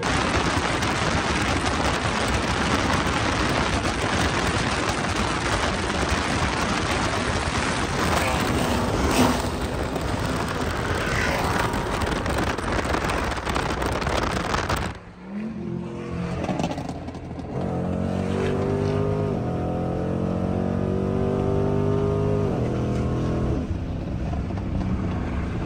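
Loud wind and road rush from a car travelling at freeway speed. About fifteen seconds in this gives way to the in-cabin sound of a Dodge's V8 accelerating, its pitch rising and then holding steady before easing off near the end.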